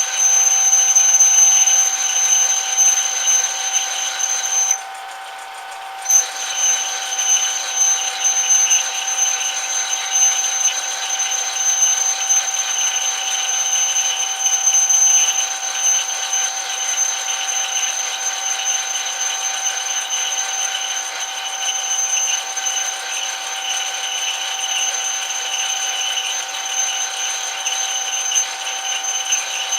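Metal lathe running with a steady high-pitched whine. The highest part of the whine cuts out for about a second some five seconds in, then returns.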